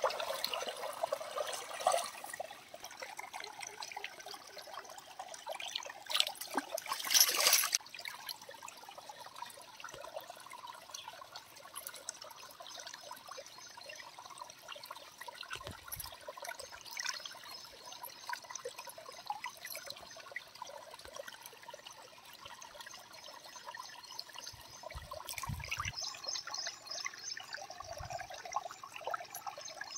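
Water splashing and trickling as fish steaks are rinsed by hand in a clay pot, with a louder rush of water lasting a couple of seconds about six seconds in. A few soft knocks of handling come near the end.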